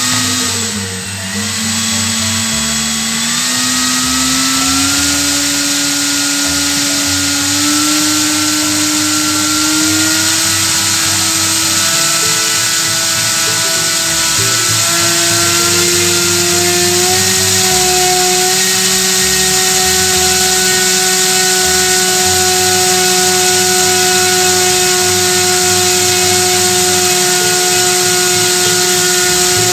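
Brushless electric model-aircraft motor spinning a propeller on a thrust test bench, being run up to full power: a loud steady whir with a whine that climbs slowly in pitch for about the first half, then holds level. The run is a maximum-thrust diagnostic check; any extra noise beyond the propeller's sound would be taken as a sign of shaft eccentricity.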